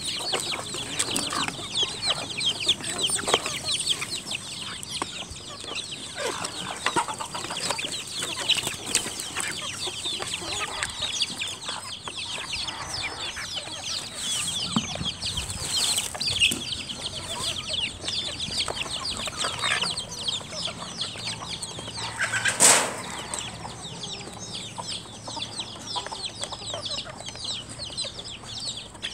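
Chickens and chicks clucking and peeping, many short high calls overlapping, with one sharp knock about three quarters of the way through.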